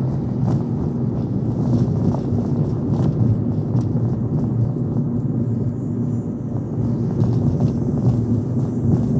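A car driving: steady low engine and road rumble, with a few faint clicks over it.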